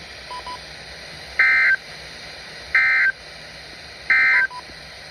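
Emergency Alert System end-of-message data tones: three short, identical, shrill warbling bursts, evenly spaced about a second and a half apart, marking the end of the alert.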